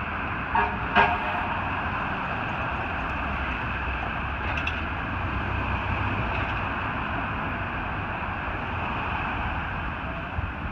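Fire engine running steadily, with two short knocks about half a second and a second in.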